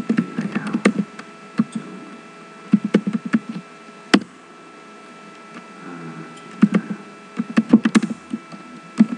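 Computer keyboard being typed on in short bursts of clicks with pauses between, including one lone sharp click about four seconds in.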